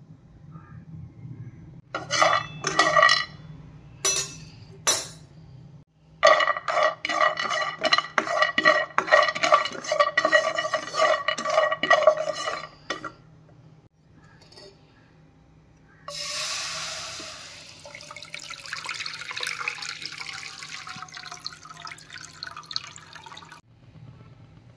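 Almonds clattering against a non-stick frying pan as a spatula stirs them, in bursts of quick clicks and knocks with a ringing of the pan. From about 16 s a steady rushing, pouring noise follows for several seconds.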